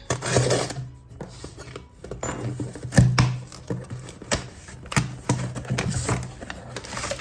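Packaging being handled and unwrapped by hand: rustling wrapping broken by sharp taps and knocks, the loudest about three seconds in.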